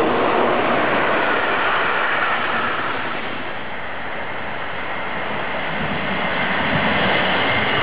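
Wheels on rails of an electric locomotive-hauled regional train rolling past and fading, then rising again as a second regional train approaches. The rolling noise is steady, dips slightly in the middle, and grows louder towards the end.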